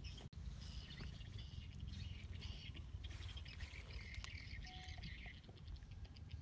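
Birds chirping in the background over a low steady rumble of outdoor noise.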